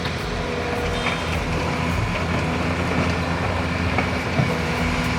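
Heavy diesel excavator engine running steadily, a continuous drone with a few held hum tones.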